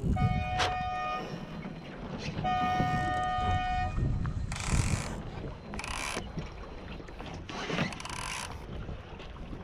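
Wind buffeting the microphone aboard a sailing dinghy, with two steady tooting tones a second or so long early on, followed by three bursts of hissing water or spray.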